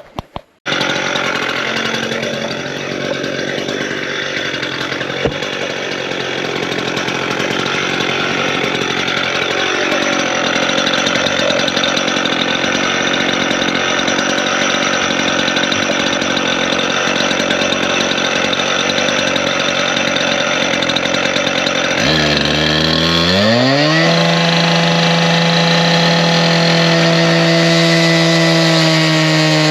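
Stihl TS 420 two-stroke cut-off saw with a 14-inch blade cutting into a steel water heater tank: the engine running hard under a loud grinding rasp. About 22 seconds in, the engine note climbs over a couple of seconds and then holds steady at high revs.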